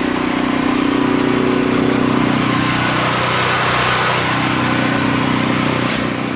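Portable generator engine running steadily at a constant speed, a continuous even drone.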